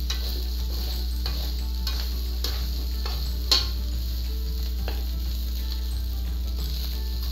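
Metal spatula stirring and scraping fried rice around a wok as it sizzles. It makes a scrape or clink every half second to second, with one sharper clank about halfway through, over a steady low hum.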